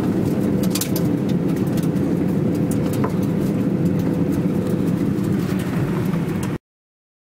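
A car driving slowly, with steady engine and road noise heard from inside the cabin and a few small clicks and rattles. It cuts off suddenly near the end.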